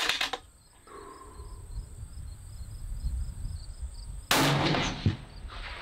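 A 6.5 Creedmoor bolt-action hunting rifle fires a single shot about four seconds in. The sharp report dies away over most of a second.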